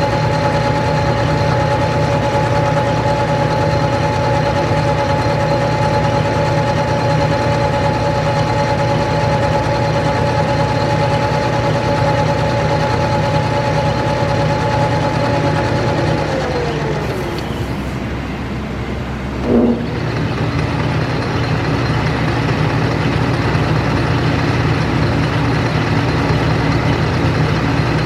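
Logan/Powermatic Houdaille 1875TH metal lathe running under its single-phase motor with a steady whine over a low hum. About 16 seconds in, the whine slides down in pitch as the machine is switched off and coasts down. A brief sharp sound comes about 19.5 seconds in, then it runs again with a lower whine.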